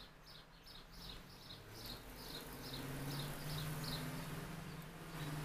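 High short chirps repeating evenly, about three a second. A low steady hum comes in about two seconds in and lasts to the end.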